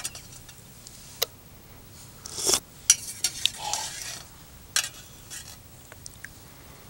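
Metal spoon clinking and scraping against a metal camping mug while soup is eaten from it: a scattering of sharp clinks with a short scrape about two and a half seconds in.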